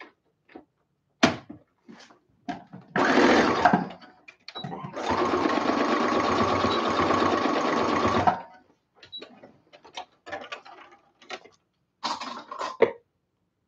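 Brother domestic sewing machine stitching one end of elastic onto a headband. It runs in a short burst about three seconds in, then a steady run of about three seconds from five seconds in. Small clicks come between the runs, and another brief burst near the end.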